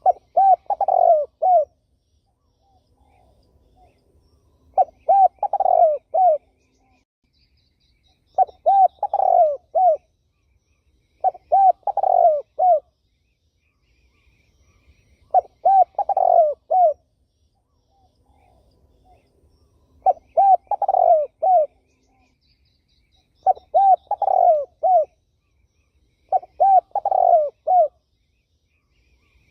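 A turtle dove cooing over and over: eight short phrases of a few rolling coos each, one every three to four seconds. Faint high chirps from another small bird come between some of the phrases.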